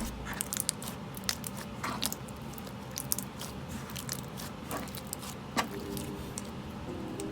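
Slime being squished and worked by hand: a run of small, irregular crackling and popping clicks.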